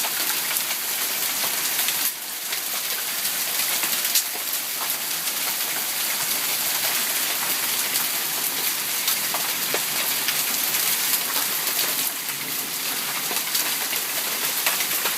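Hailstorm: hail and rain pelting down in a steady hiss, with a few sharp clicks of hailstones striking.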